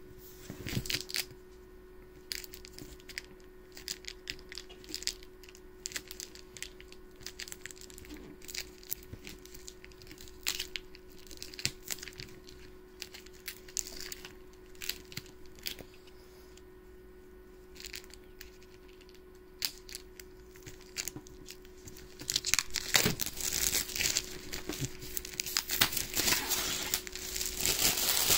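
Wrapping being torn and crumpled off a board game box by hand: scattered small crackles at first, then dense, louder crinkling and tearing for the last several seconds.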